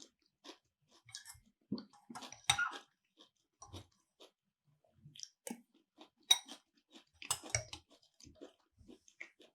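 Close-miked chewing and mouth sounds of a person eating: scattered short clicks and wet smacks, the loudest about two and a half, six and seven and a half seconds in.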